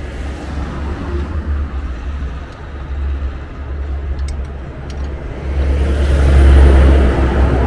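Low, steady rumble of a motor vehicle engine that swells louder about five and a half seconds in.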